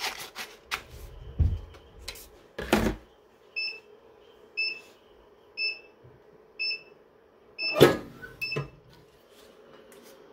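Heat press timer beeping about once a second, six short electronic beeps, signalling that the pressing time is up. A loud clunk comes near the end as the press is lifted open.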